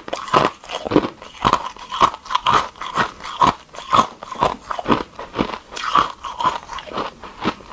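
A person chewing ice cubes with the mouth closed, crunching steadily about twice a second, picked up close by a clip-on microphone.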